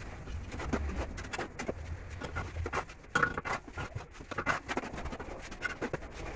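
Bricklaying: a steel trowel scraping mortar from a tray and hollow clay bricks being set and tapped into their mortar bed, making an irregular run of short clicks, knocks and scrapes.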